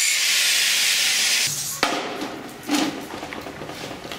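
Thermite rail-welding charge burning beside the track: a loud, steady hissing fizz that cuts off about a second and a half in. A sharp knock and a few clattering sounds follow.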